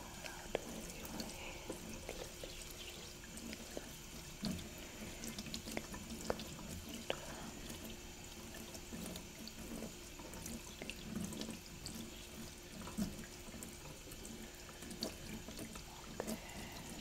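Tap water running steadily into a sink, with scattered small wet clicks and splashes. It serves as the layered sound of hair being rinsed during a hair wash.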